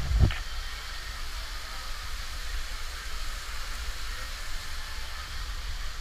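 Wind buffeting a handheld camera's microphone on a spinning flying-elephant ride: a low, uneven rumble under a steady hiss. Two sharp thumps land right at the start.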